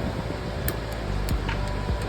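A few short, sharp clicks of hand tools and wire being handled, over a steady low hum.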